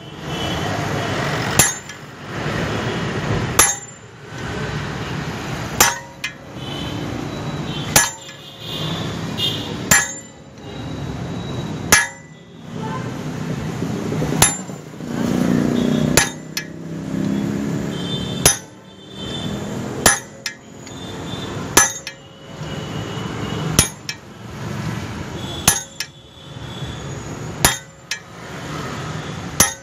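Blacksmith's forge work: a sharp metal clank about every two seconds, each followed by a second or so of rushing noise, in an even, repeating rhythm.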